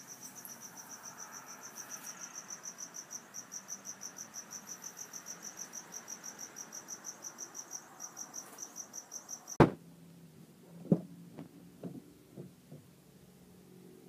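A cricket chirping steadily at night, about four high pulses a second, until a sharp click about two-thirds of the way through cuts it off; a few faint knocks follow.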